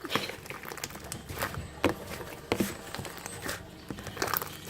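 Slime being squished and poked by hand: irregular small clicks, pops and taps, a few a second.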